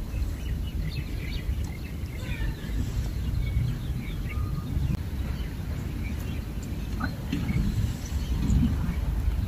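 A low, uneven rumble of wind on the microphone, with small birds chirping in short calls over it.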